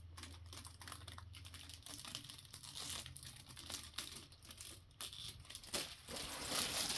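Plastic wrapping being slowly peeled off an RC truck. It crinkles and rustles in faint, irregular bursts that grow louder near the end.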